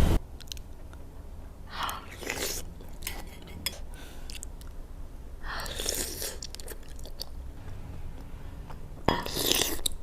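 A person eating baso aci close to the microphone: chewing with small wet clicks, and three louder noisy bursts about two, six and nine seconds in.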